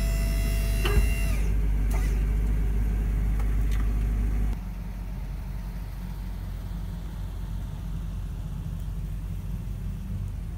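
Electric hydraulic pump motor of a PH-516 dump hoist whining steadily, then a click about a second in as it shuts off and the whine winds down. A low rumble carries on, dropping to a quieter level about four and a half seconds in.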